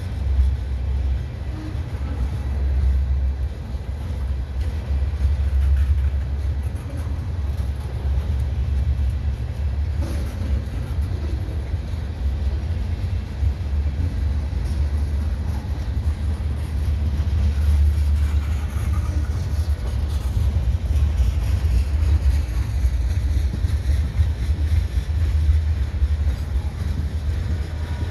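CSX freight train of anhydrous ammonia tank cars rolling past, its wheels on the rails making a steady low rumble.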